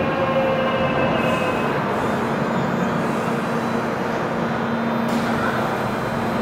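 Korail Line 3 electric train finishing its stop at an underground platform: a falling motor whine dies away in the first two seconds. The standing train then hums steadily.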